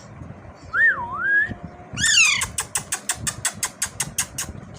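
Pet parrot giving a wavering whistle, then a loud harsh falling call followed by a rapid run of sharp clicks, about seven a second.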